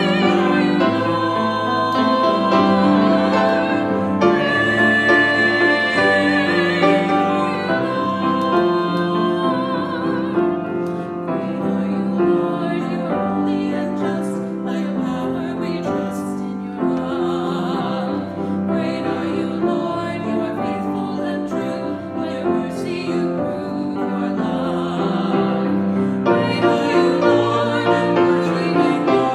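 A woman singing a slow worship song in a trained, classical style with a wide vibrato, accompanied on piano.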